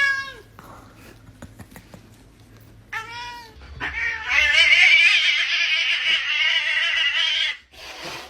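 A cat yowling: a short wavering call at the start, another about three seconds in, then a long, loud, wavering yowl lasting nearly four seconds.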